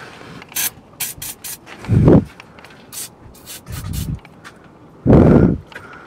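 Several short hisses from an aerosol spray can, with rubbing and a few dull thumps from hands and the can working against the car's underside. The loudest are the thumps about two seconds in and again about five seconds in.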